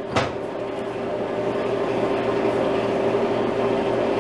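Steady electric machine hum with one steady tone, with a single sharp click just after the start.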